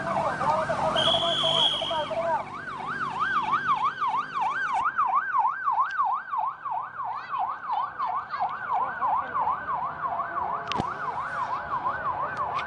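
Convoy escort vehicle's siren in a fast yelp, its pitch swinging rapidly up and down about three times a second. In the first couple of seconds it overlaps with a second siren or horn tone.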